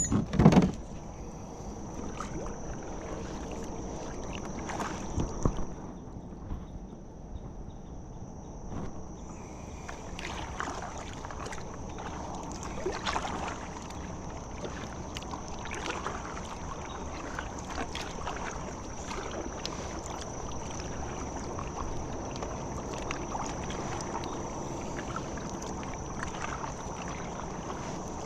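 Water sloshing and lapping around a kayak on a swift creek, with a couple of sharp knocks near the start and another about five seconds in, then light irregular splashes. A steady high insect drone runs underneath.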